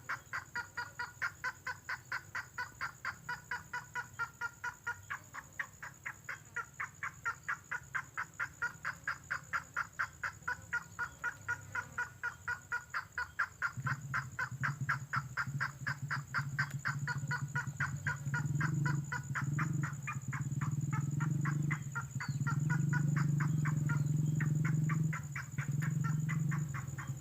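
Red tengkoah (burung tengkoah merah) calling, played as a trapping lure: a long run of short, even notes, about three a second at first and quickening as it goes, over a steady high tone. About halfway through, a loud low hum comes in beneath the calls, breaking off briefly a few times.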